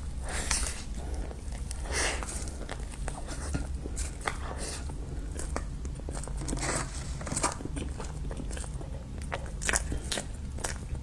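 Close-miked eating: bites and chewing with irregular crunchy crackles, over a low steady hum.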